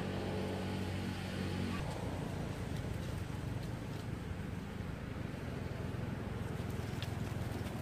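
An engine running with a steady low hum; about two seconds in it gives way to a rougher, dense low rumble.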